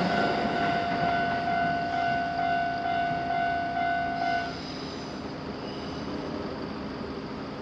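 Japanese railroad crossing warning bell ringing at one steady pitch, then stopping abruptly about four and a half seconds in, the signal that the crossing has cleared after a train.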